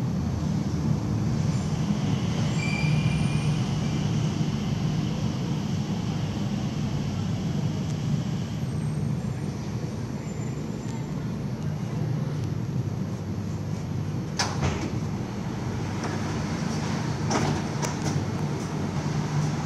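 Mitsubishi Crystal Mover rubber-tyred people-mover train running along its guideway with a steady low rumble and hum. There is a faint high whine early on and a few sharp knocks near the end.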